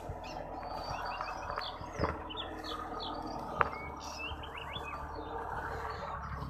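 Birds chirping repeatedly in short calls, with two sharp knocks, one about two seconds in and a louder one about three and a half seconds in.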